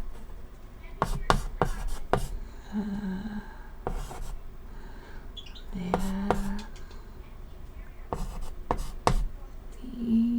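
Chalk writing on a chalkboard: irregular sharp taps and short scrapes as letters are written, with a couple of brief soft hums between strokes.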